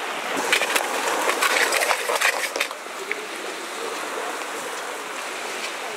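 A quick run of sharp clicks, scratches and knocks from close-up handling, lasting about two and a half seconds, then a steady hiss of wind and surf.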